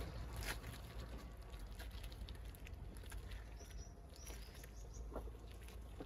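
Quiet cattle-shed ambience: a faint low steady rumble with a few soft scattered clicks, and a short run of faint high chirps about three and a half seconds in.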